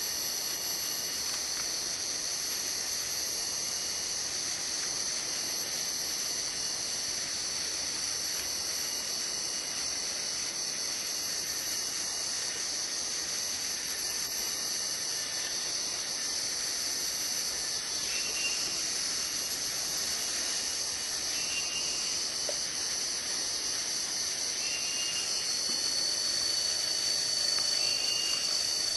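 Steady high-pitched drone of a tropical rainforest insect chorus. From about two-thirds of the way through, short faint chirps repeat every few seconds, and near the end a thin, steady high whine joins in.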